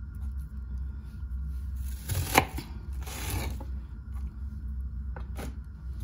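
Knife slicing a white onion on a plastic cutting board: a few cuts and knocks, the loudest a sharp knock a little over two seconds in, with a second stroke about a second later and light clicks near the end. A steady low hum runs underneath.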